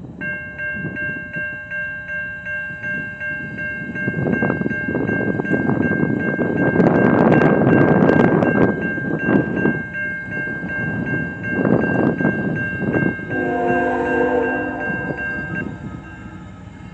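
Railroad grade-crossing bell ringing rapidly and steadily while the gates lower, then stopping about a second before the end. Near the end the approaching lead locomotive, a GE ET44AH, sounds its horn once for about a second and a half. Gusts of wind buffet the microphone, loudest in the middle.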